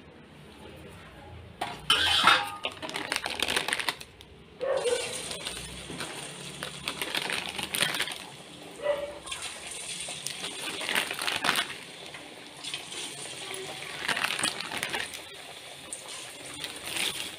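Thattai (flat rice-flour discs) frying in hot oil in a steel kadai: each disc slipped in sets off a burst of sizzling and crackling that settles into a steady bubbling hiss. The first burst comes about two seconds in, with more every few seconds as further discs go in.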